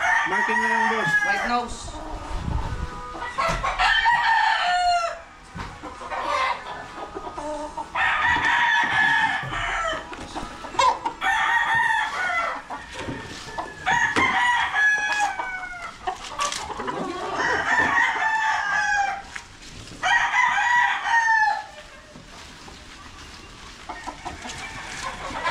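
Game roosters crowing crow after crow, about eight crows at roughly three-second intervals, each drawn out and trailing off at the end.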